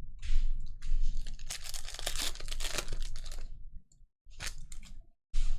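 A trading card pack's wrapper being torn open and crinkled: a rustling tear lasting about three seconds, then two short crinkles near the end.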